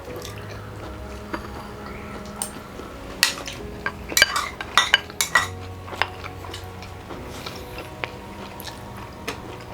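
Cutlery clinking and scraping against plates while eating, with scattered sharp clinks, most of them clustered in the middle, over a steady low hum.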